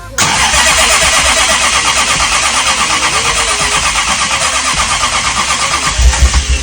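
Starter motor cranking a gull-wing Jaguar's engine in a steady rhythmic churn, about six beats a second, without the engine catching. A few heavier low thuds come near the end before the cranking stops.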